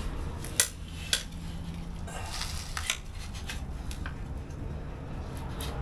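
Steel front axle shaft and its U-joint clinking and knocking as they are slid along a wooden board toward the axle tube: a handful of sharp metal clicks, with a short scraping rattle about two seconds in.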